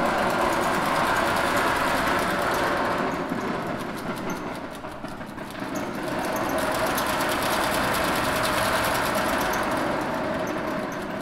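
Small dry objects buzzing and rattling in the cone of a driven loudspeaker as it bounces them about: a dense, fast chatter of ticks that eases a little midway and then swells again.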